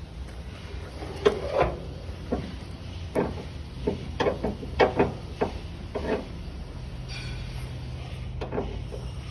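A run of sharp metallic clicks and knocks, about a dozen over five seconds at an uneven pace, from handling tie-down straps and their hardware on a flatbed trailer, over a steady low hum.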